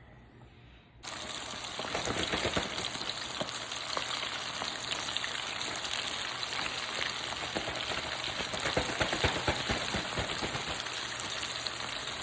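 Breaded chicken pieces deep-frying in hot oil: a dense, steady sizzle and crackle that starts abruptly about a second in.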